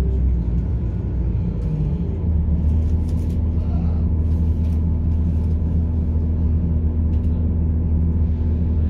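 Onboard sound of a British Rail Class 170 Turbostar diesel multiple unit: its underfloor MTU six-cylinder diesel engines running with a steady low drone, heard from inside the carriage. A steady higher note joins about two seconds in, with a few light clicks over the top.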